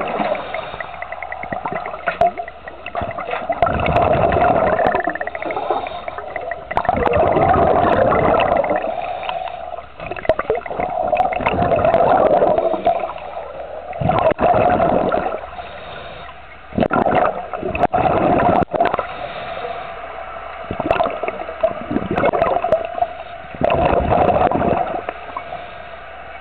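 Water gurgling and sloshing around a shark cage, heard underwater, rising in surges every few seconds.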